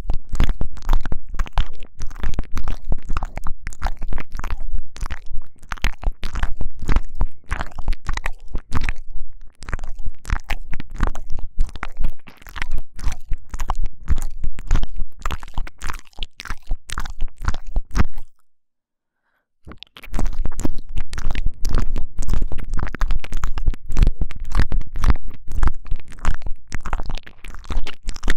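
Intense close-up 'ear eating' mouth sounds: rapid wet clicks, licks and tongue smacks right against a binaural microphone, with a deep rumble underneath. They break off into silence for about a second and a half about two thirds of the way through, then resume.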